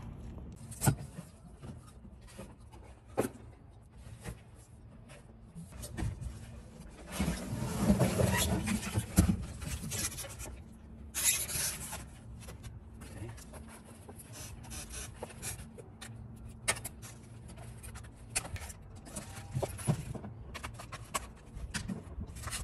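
Foam and plastic packaging rustling and scraping as a new electric bike is unwrapped, with scattered knocks and clicks. The rustling is loudest for a few seconds about a third of the way through. A steady low hum runs underneath.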